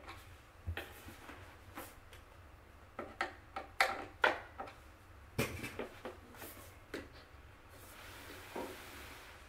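Scattered knocks and clicks of white flat-pack desk panels and their cam-lock hardware being handled and pushed into place, with a soft rustling hiss near the end.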